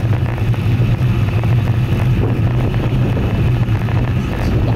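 Steady wind rush and rolling rumble on an action camera's microphone while riding a road bicycle, with a strong even low drone.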